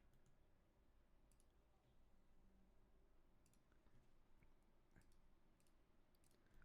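Near silence with faint, scattered computer mouse clicks at irregular intervals.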